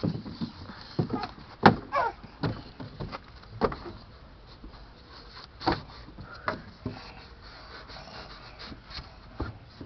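Scattered knocks and bumps on a wooden play set as a child climbs on it, with a few short squeaks in between.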